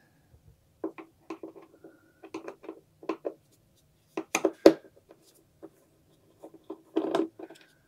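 Screwdriver working the wing-mounting screws out of a foam RC jet: a scatter of short clicks and scrapes, with one sharper click a little before five seconds in and a brief cluster of clicks near seven seconds.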